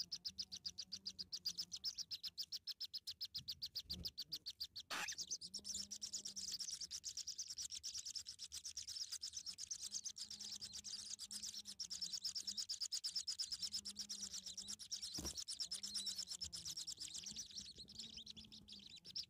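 Naked, newly hatched nestlings begging for food: a rapid, unbroken high-pitched cheeping that grows denser about five seconds in. A faint low wavering tone runs underneath, and there are a couple of short knocks.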